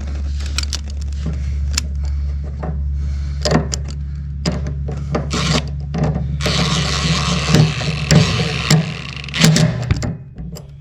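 Hand-tool work on a fuel hose and its hose clamps: clicks, knocks and rubbing from tightening the clamps, with a longer stretch of rasping scrapes in the middle, all over a steady low hum.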